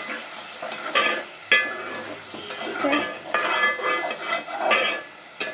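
Metal spatula stirring and scraping a thick spiced onion-tomato masala in a metal pot, with a light sizzle of frying: the masala is being fried after a splash of water to keep the spices from burning. The spatula strikes the pot sharply about one and a half seconds in and again near the end.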